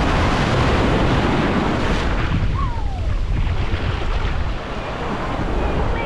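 Atlantic Ocean surf breaking and washing up the beach, with wind buffeting the microphone.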